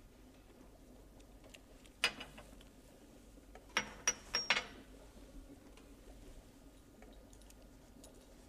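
Glass clinks: a drinking glass set down on a glass saucer, then a quick run of four light glass-on-glass clinks with a short high ring, over a faint steady hum.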